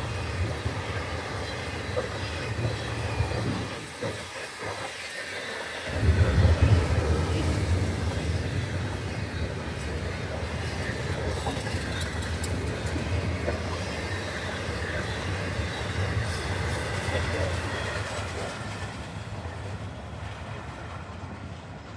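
FEC intermodal freight train rolling past, trailer flatcars and double-stack container cars rumbling and rattling on the rails. The sound dips briefly about four seconds in, comes back loudest at about six seconds, and fades near the end as the last cars go by.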